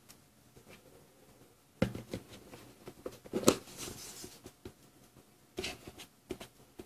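Faint clicks and short bursts of crackling static from a 2-metre FM receiver on the ISS downlink between transmissions, with louder crackles about two seconds in and again about three and a half seconds in.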